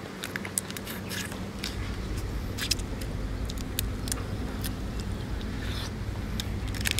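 Crab shell crackling and clicking as fingers pick and tear meat from a cooked crab, in scattered sharp ticks. Under it runs a steady low motor-like hum.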